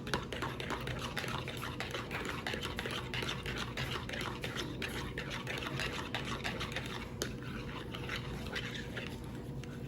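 Raw eggs being beaten in a bowl, the utensil clicking rapidly and steadily against the bowl as they are mixed with their seasoning.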